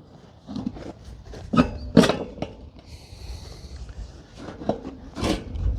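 Several scattered knocks and clatters, the loudest about two seconds in, with a short hiss a little after three seconds.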